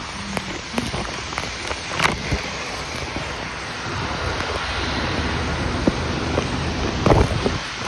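Steady noise of a jet airliner's engines, growing a little louder about halfway through, with wind on the microphone. A couple of short knocks, about two seconds in and near the end.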